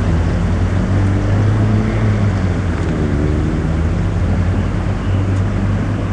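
Pickup truck engine running steadily at low speed while towing a trailer float, a loud low hum.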